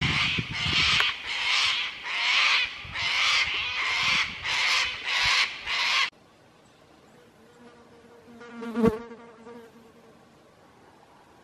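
Cicadas calling in loud, pulsing bursts, a little more than one a second, cutting off abruptly about six seconds in. A single short, sharp sound about three seconds later.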